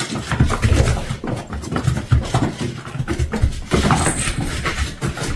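Close-up animal sounds: an irregular run of short, low pulses and clicks.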